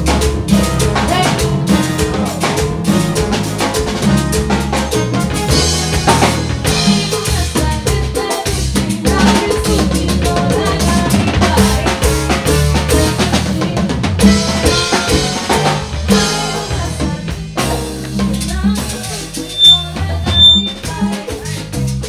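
Live band playing an upbeat Latin-style groove during a sound check, led by drum kit and percussion, with a couple of sharp accents near the end.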